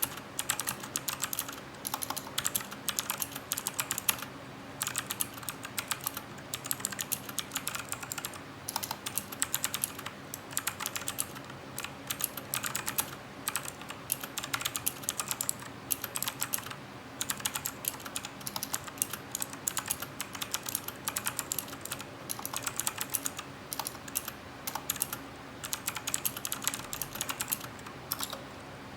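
Typing on a Cooler Master CK350 mechanical keyboard with clicky Gateron Blue switches: fast runs of sharp key clicks in bursts, broken by short pauses every second or two.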